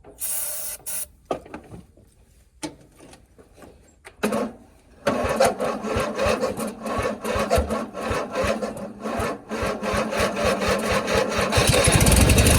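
A short spray hiss of starting fluid into the carburetor. Then, from about five seconds in, the starter cranks the cold 1997 MTD Yard Machines riding mower's engine in a rapid, even rhythm. Near the end the engine catches and starts running, a hard cold start helped by ether.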